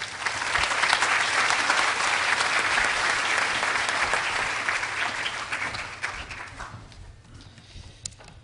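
Audience applauding, starting at once at full strength and dying away about seven seconds in.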